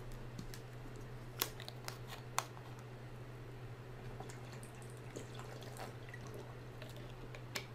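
Quiet room with a steady low hum, a few faint clicks and taps, and soft sips as a man drinks from a glass.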